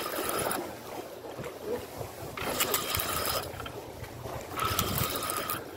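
Large spinning reel whirring in three spells of about a second each as the line is wound in on a hooked mullet.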